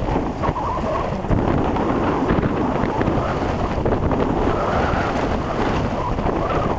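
Wind buffeting the camcorder's microphone: a steady, loud, low rumble with no clear pitch.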